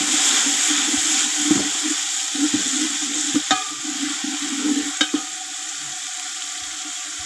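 Chopped tomatoes and onions sizzling in hot oil in a large metal pot, stirred with a metal ladle that scrapes along the pot, with a couple of sharper clinks about three and a half and five seconds in. The sizzle drops a little after about five seconds.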